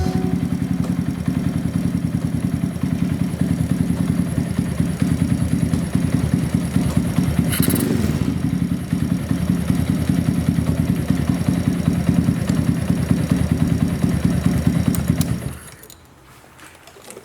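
Small 125cc single-cylinder motorcycle engine, a Snake Motors K16, idling steadily, then shut off about fifteen seconds in.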